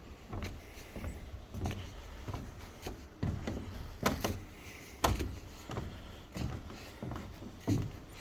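A series of irregular knocks and thumps, roughly two a second, over a low rumble.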